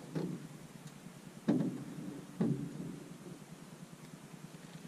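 Three hollow knocks on the aluminum boat's hull or deck, about a second apart, each ringing briefly; the second is the loudest.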